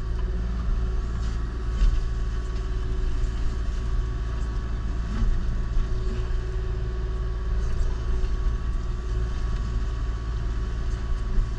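Kubota KX040-4 mini excavator running steadily with its Indeco hydraulic mulcher head working brush, heard from inside the cab: a constant low engine drone with faint steady whining tones and a few light knocks.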